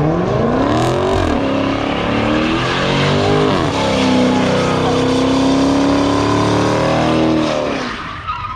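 A Mopar V8 (Dodge Charger or Challenger) revving hard in a burnout. It sweeps up and down twice, is held at high revs for several seconds with a rushing noise over the engine, and drops off near the end.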